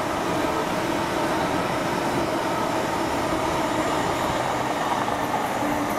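Diesel train running, a steady, loud noise of wheels and machinery with faint steady tones through it.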